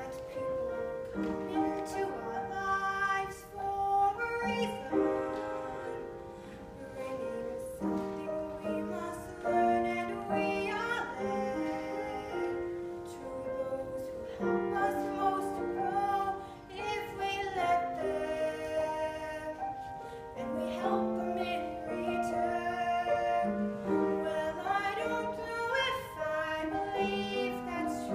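Girls' voices singing with grand piano accompaniment, a duet song from a recital.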